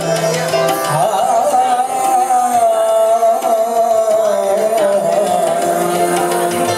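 Live South Asian semi-classical music: tabla strokes under a held drone, with violin and bamboo flute. A long melody line slowly wavers and dips in pitch.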